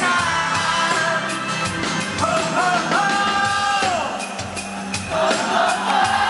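Live rock band playing with a male lead singer holding long sung notes that slide down at their ends.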